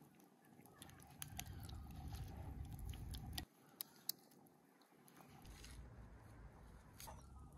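A hand squishing and kneading chicken pieces in a wet spiced marinade in a bowl: soft squelching with small clicks, stopping abruptly about three and a half seconds in. Then only a faint low rumble.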